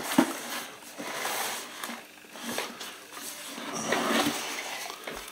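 A cardboard motherboard box being handled and opened: cardboard rubbing and sliding in a few noisy swells, with one sharp knock just after the start.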